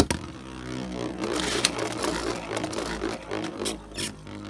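Beyblade top spinning on a clear plastic stadium floor just after launch: a steady whir that falls in pitch over the first second, with a few sharp clicks along the way.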